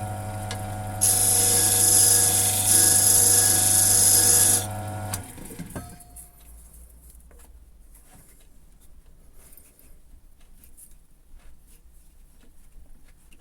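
Wood lathe motor running with a steady hum while a tool cuts into a spinning plastic piece, making a loud hissing scrape for about three and a half seconds with a brief break. The lathe is then switched off about five seconds in and spins down, leaving only faint handling clicks.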